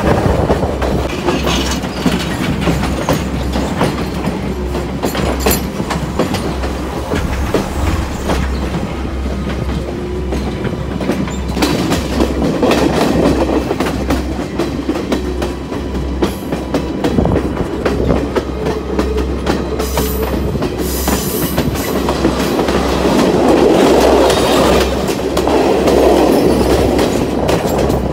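Passenger train running, heard at an open carriage window: a steady rumble with the wheels clicking over the rail joints, louder in stretches.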